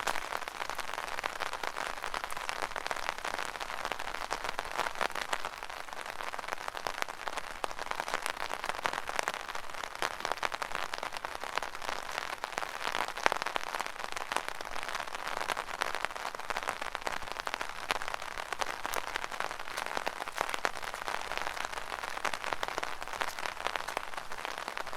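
Rain drumming steadily on an umbrella canopy, a dense, even patter of countless small drop impacts.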